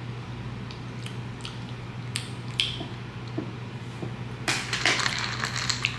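Kitchen handling noises: a few light clicks and taps, then about a second of dense crackling clicks near the end, over a steady low hum.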